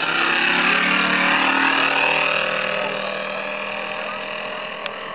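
Radio-controlled model warbird flying past: the drone of its engine and propeller swells to a peak in the first second or two, then drops in pitch and fades as the plane flies away.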